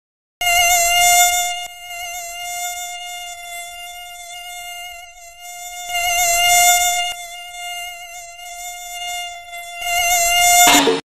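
Whine of a mosquito in flight, a sound effect: one steady high buzz that swells louder and fades back three times, as if the insect passes close, and cuts off suddenly near the end.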